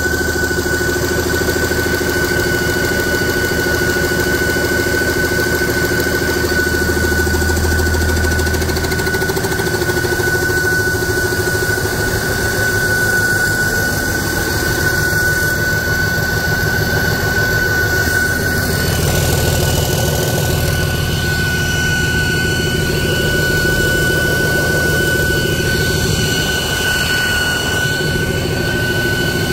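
Remanufactured 2006 Cummins ISB 5.9L common-rail six-cylinder diesel running steadily on a test run, with a constant high-pitched whine over the engine sound.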